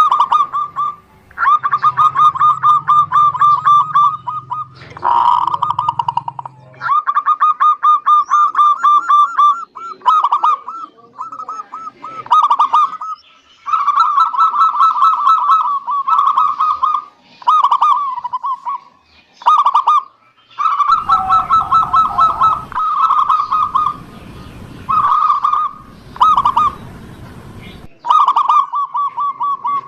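Zebra doves (perkutut) cooing: rapid runs of short pulsed notes, phrase after phrase with brief gaps between them.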